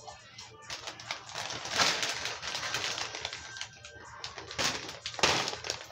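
Close-up crunching and chewing of a Doritos tortilla chip: irregular crackly crunches in several bursts.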